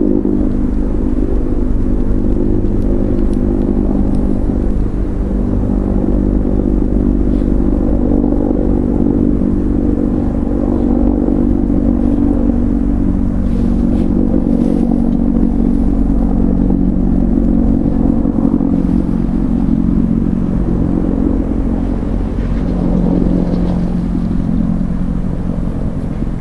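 A steady low hum over a rumble, like a motor or engine running, with a few faint clicks.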